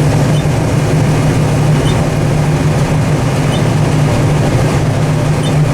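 Combine harvester running steadily while unloading corn into a grain buggy, a loud, even machine drone with a strong low hum.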